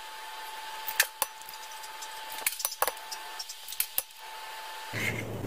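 Light clicks and clinks of eggshell and bowl while eggs are separated by hand, whites from yolks: a scattering of single sharp taps, several in quick succession near the middle.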